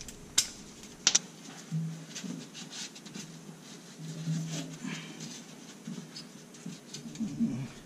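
Two sharp metallic clicks about half a second and a second in, then quiet rubbing and handling noises. These come from refitting the fill plug on a Subaru WRX STI's rear differential by hand and wiping around it with a rag.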